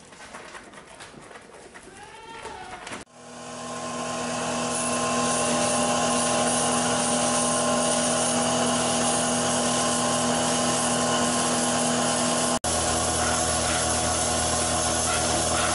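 Goats bleating faintly for the first few seconds, then a milking machine's vacuum pump running with a steady, loud hum and whine that swells up over a second or two.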